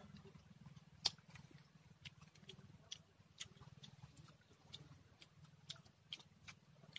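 Faint, scattered clicks and mouth smacks of people eating with their hands, with one sharper click about a second in, over a low steady hum.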